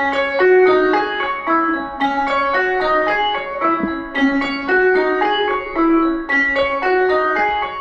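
Background piano music: a steady run of quick notes.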